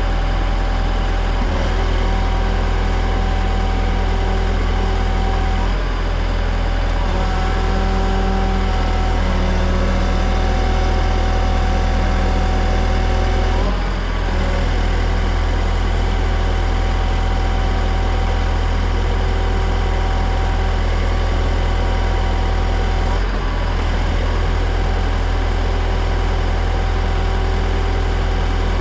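The engine of a lift used to raise roof trusses, running loud and steady, with its pitch shifting briefly a few times.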